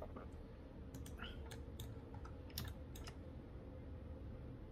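Scattered clicks of a computer mouse and keyboard, several separate clicks over a few seconds, over a faint steady low hum.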